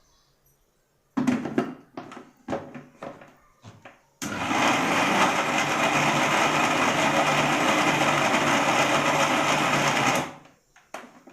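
Electric blender mixing cake batter, running steadily for about six seconds and then switched off. A few irregular knocks and clatters come just before it starts.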